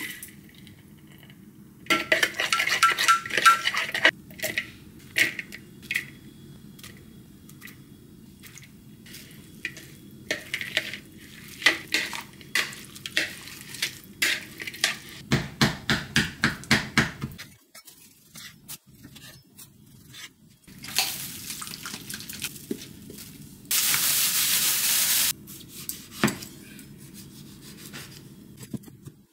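Metal utensils clinking and scraping against a glass mixing bowl as a dressing and sliced vegetables are mixed, in clusters of ringing taps, at times about two a second. Near the end comes a brief steady rush of noise, then a few single knocks.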